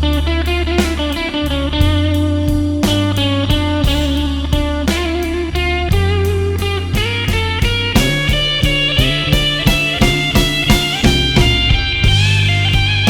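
Blues band playing an instrumental break: an electric guitar lead with bent notes over bass and drums keeping a steady beat.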